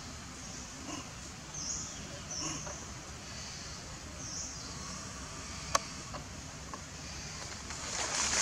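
A few short, high-pitched animal chirps over a steady outdoor background, with one sharp click a little past halfway and a brief noisy rustle near the end.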